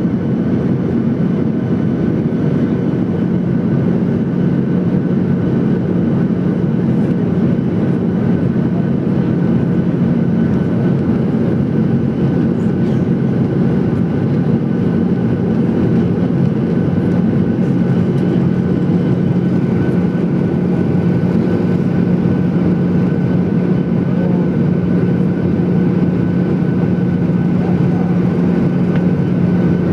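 Cabin noise inside a Boeing 737-800 during the approach: the steady rush of airflow and the drone of its CFM56 turbofans. A constant low hum sits under it, with a fainter high whine.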